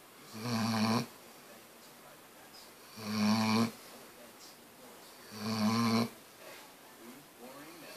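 Weimaraner snoring in its sleep: three snores about two and a half seconds apart, each lasting around half a second, with quiet breathing between them.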